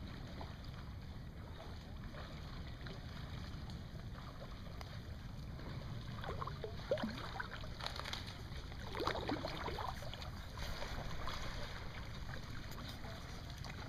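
Wind noise on the microphone and small waves lapping at a lakeshore, with a few brief faint sounds in the middle.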